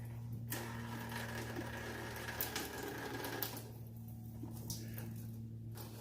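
Light clicks and rustling of hands turning a radiator drain petcock, over a steady low hum.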